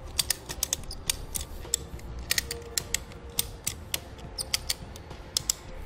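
Ratchet on a Konig K-Summit self-tensioning tire chain's hub assembly being worked to tighten the chains: a run of sharp ratchet clicks, about four a second, unevenly spaced.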